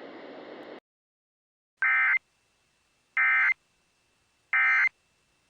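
Three short bursts of EAS SAME digital data, the buzzy data code that marks the End of Message and closes an emergency alert broadcast. They come about 1.3 seconds apart. A brief hiss of radio static cuts off under a second in.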